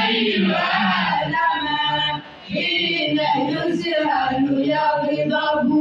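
A boy's voice chanting a melodic recitation into a microphone, in long held, wavering notes, with a short breath pause about two seconds in.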